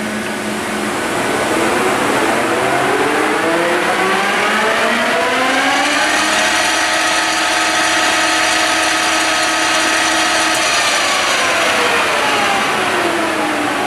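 Cincinnati Hydrashift engine lathe's headstock spinning up to its top speed of 980 rpm, with a gear whine that rises in pitch. The whine holds steady for a few seconds, then falls as the spindle slows down near the end.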